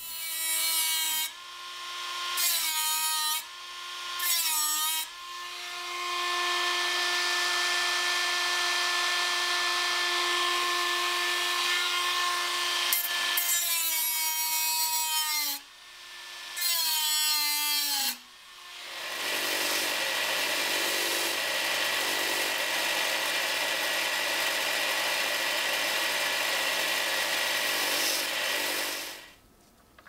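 Rotary tool with an abrasive cut-off disc cutting thin sheet steel. The motor's whine dips in pitch as the disc bites and climbs again when it lifts off, first in three short cuts and then in longer runs. In the last third the sound turns lower and rougher, a steady grinding that stops suddenly near the end.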